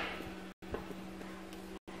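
A steady low hum with hiss, cut off briefly twice, with one soft tap about three-quarters of a second in.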